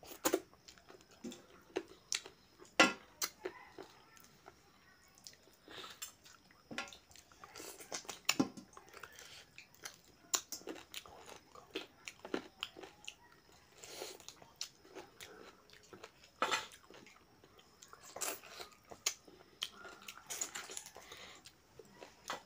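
Close-up chewing of a mouthful of rice and mutton curry, with irregular sharp, wet mouth clicks and smacks.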